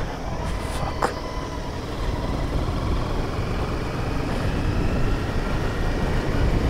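Motorcycle engine running steadily while riding, mixed with wind and road noise on the camera, with a brief click about a second in.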